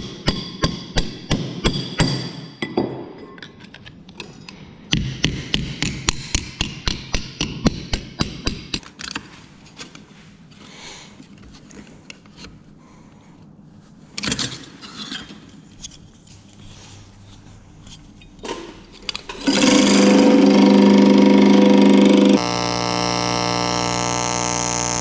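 Sheet-metal fin being hammered in quick runs of sharp metal strikes, then quieter handling knocks. Near the end comes a loud steady hum, followed by the even, steady buzz of a TIG welder joining the fin halves down the centre.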